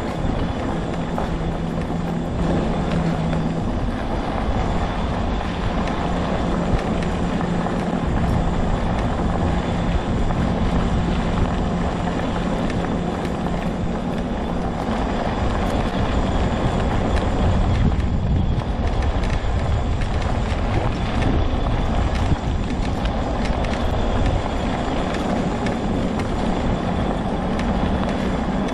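Homemade all-wheel-drive off-road mobility scooter riding along at a steady speed: an even motor hum over a rough, continuous low rumble from the ride.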